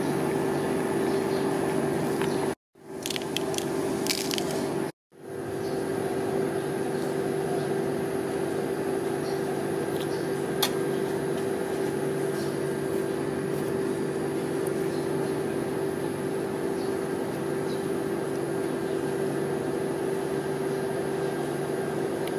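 Steady mechanical hum of an ice cream roll machine's refrigerated cold plate, its compressor running. Soft squishes and clicks come about three to four seconds in as whipped cream is squeezed from a bottle. The sound breaks off briefly twice.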